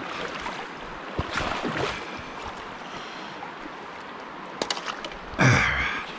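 Creek water running steadily, with a few sharp clicks and a brief louder burst of noise near the end.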